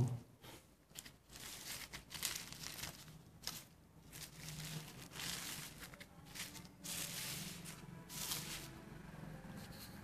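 Plastic bubble wrap and packaging crinkling and rustling as it is handled, in irregular bursts.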